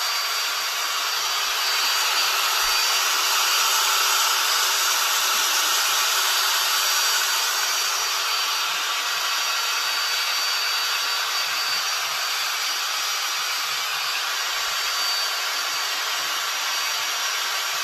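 Power drill running steadily with a mixing paddle, whipping a large batch of tabletop epoxy resin at high speed, which beats micro bubbles into the resin.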